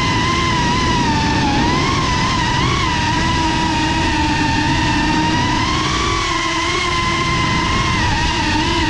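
FPV racing quadcopter's motors and propellers whining steadily, the pitch wavering up and down as the throttle changes.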